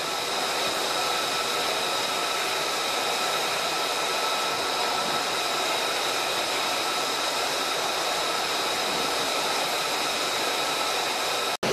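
Steady rushing hiss with several faint, steady high-pitched tones in it, typical of ambient wind and machinery noise on an aircraft carrier's flight deck; it cuts out abruptly near the end.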